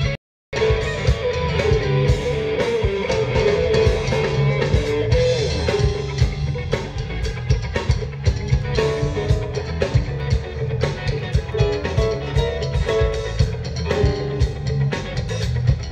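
Live band playing: electric guitar over bass and drum kit with a steady beat. The audio drops out completely for a split second near the start.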